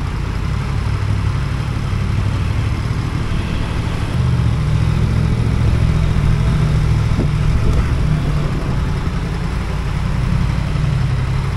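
Motorcycle engine running steadily at low revs, a little louder from about four seconds in.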